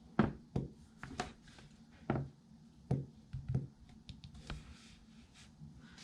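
Irregular light taps and knocks, about eight of them spread over several seconds, from a smartphone being handled and tapped through its setup screens.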